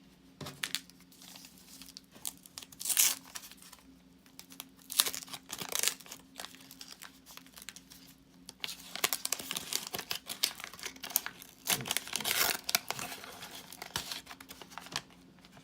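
Wax paper wrapper of a 1984 Topps football wax pack being torn open and crinkled by hand. The crackling comes in irregular bursts, with sharp tears about three and five seconds in and a long stretch of steady crinkling in the second half.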